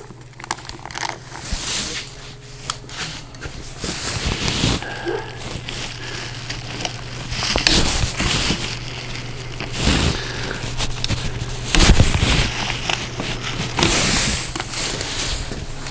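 Packaging being handled: irregular crinkling, rustling and scraping of paper and plastic as the manuals and accessories are pulled from the generator's box.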